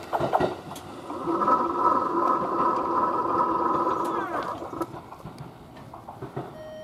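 Level crossing's electronic warning alarm giving its 'pe-pe' beeping tone, steady, and cutting off about five seconds in as the train clears. A few sharp clicks come early on from the departing Kintetsu train.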